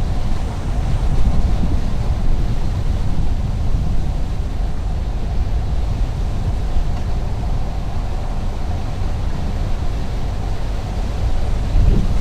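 Steady low rumble of a car driving on a highway: tyre and engine noise, with a faint steady hum above it.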